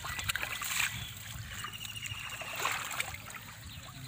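Shallow muddy water sloshing and splashing in irregular small bursts as hands gather a push net's mesh through it.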